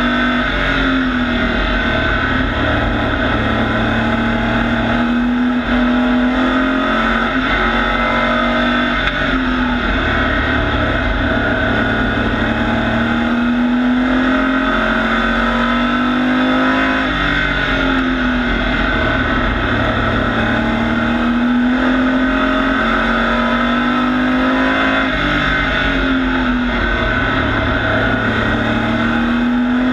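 Pro Truck race engine at racing speed on a short oval, heard onboard. It runs loud and high, easing off briefly about every eight seconds as the truck lifts for the turns, then climbing again down the straights.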